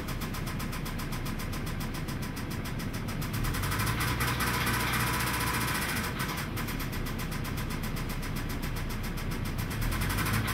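2003 Mazda 6's 2.3-litre four-cylinder engine running with a rapid, even knock.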